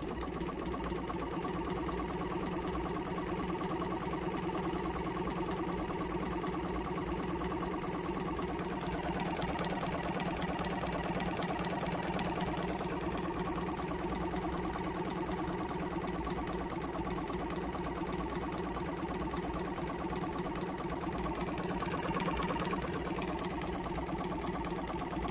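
Small 12-volt air compressor motor in a portable jump starter box running steadily with a fast, even pulsing. It runs barely, and the owner takes the motor to be tight after being seized.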